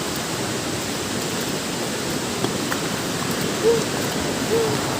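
Steady rushing of falling water from a monsoon waterfall. Two brief short sounds rise above it near the end.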